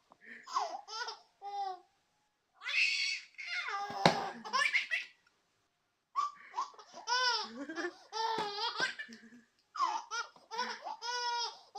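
A baby belly-laughing in repeated bursts of rhythmic, pitched laughs. About four seconds in there is a single thump, a dropped box landing, in the middle of a laughing fit.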